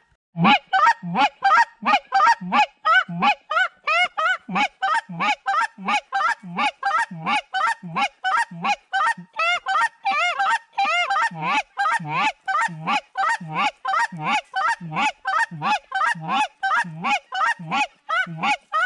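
Rapid, steady goose honking, about three honks a second. Each honk breaks from a short low note up to a higher one.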